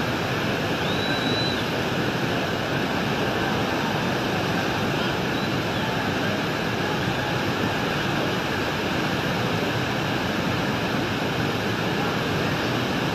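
Muddy floodwater rushing down a street as a fast torrent, a steady rushing noise of flood water with no let-up.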